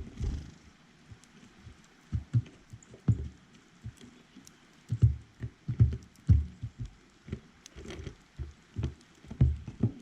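Irregular dull thumps and knocks close to the microphone, about a dozen of them at uneven spacing, with a few faint high ticks between.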